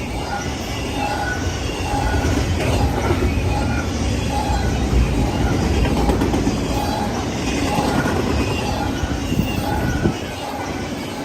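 A train rolling past with a steady low rumble of wheels on rail. A short ringing tone repeats about every two-thirds of a second over it.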